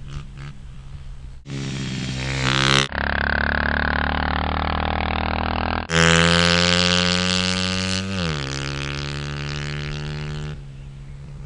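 Small engines or motors droning in a string of abruptly cut clips: one revs up in pitch, another runs steadily, and a louder one drops in pitch about eight seconds in.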